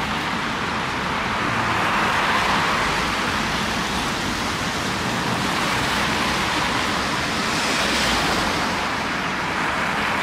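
Road traffic: cars passing close by one after another, a steady tyre and engine noise that swells as each goes past, loudest about two seconds in and again near eight seconds.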